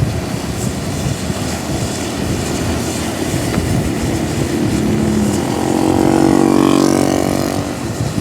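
A vehicle drives past on a wet road in heavy rain. The hiss of its engine and tyres swells to a peak about six to seven seconds in, then eases.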